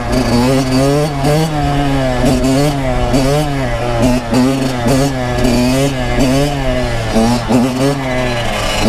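Kawasaki KX100 two-stroke single-cylinder dirt bike engine revving up and down over and over as the throttle is worked to hold a wheelie.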